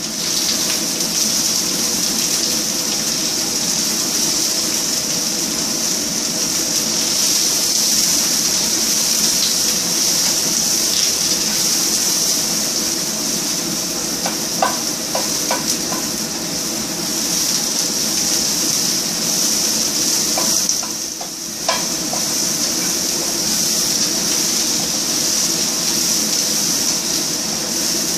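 Garlic and white onions sizzling in hot coconut oil in a frying pan, a steady hiss. A few light clicks come about halfway through, and the sizzle briefly drops about three-quarters of the way through.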